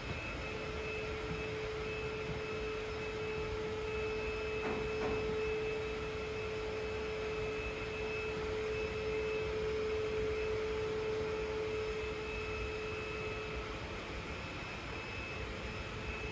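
A steady background hum with one clear held tone that fades out about three seconds before the end, over an even rushing noise.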